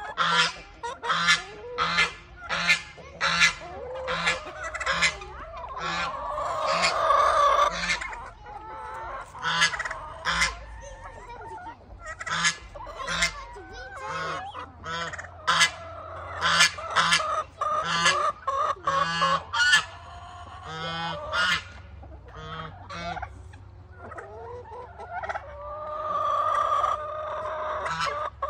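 Goose honking over and over in short, sharp calls, about one or two a second, with a couple of longer drawn-out calls among them.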